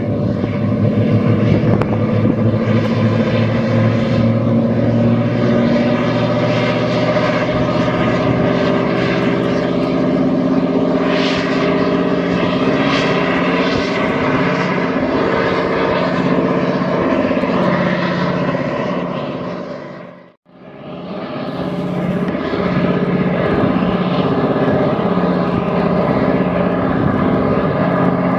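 Engines of a Meteor-2020 high-speed hydrofoil running loud and steady as the vessel gets under way, their pitch rising slightly over the first few seconds. The sound drops out briefly about two-thirds of the way through, then resumes.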